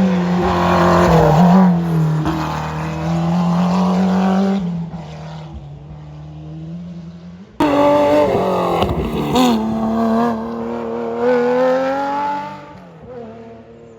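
Historic rally cars' engines revving hard through corners: one car accelerates and fades away, then about halfway through another starts abruptly, its pitch stepping with gear changes and rising again before it fades out.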